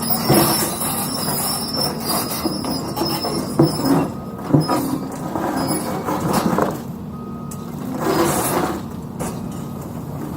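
Excavator's diesel engine running steadily under load, with bursts of hydraulic hiss and two sharp knocks a little before the middle, as of the machine's steel working against the concrete.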